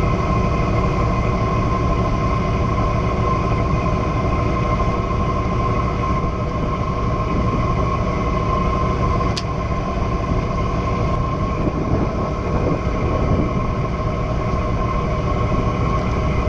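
Boat engine running steadily, a constant low drone with a steady whine in it. A short click about nine seconds in.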